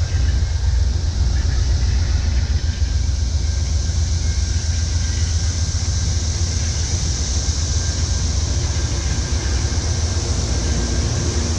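Amtrak Superliner bilevel passenger cars rolling past at close range: a steady rumble of steel wheels on the rails with a rushing noise, and no break in it.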